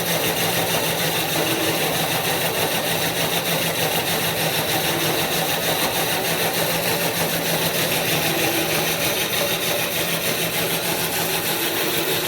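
Plastic-filament extruder running steadily, its small single-phase electric motor driving the screw through a chain drive and worm gearbox, giving an even mechanical hum.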